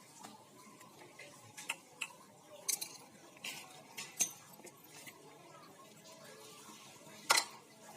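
Light metallic clicks and clinks from engine parts and tools being handled, a few scattered taps with the sharpest one near the end.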